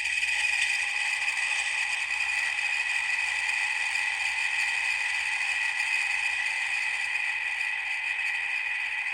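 Sound module of an Athearn N-scale 57-foot mechanical reefer car playing its refrigeration generator engine sound through the car's tiny speaker. The sound is steady, high-pitched and thin, with little bass. It is at its factory volume, a little bit loud for a train.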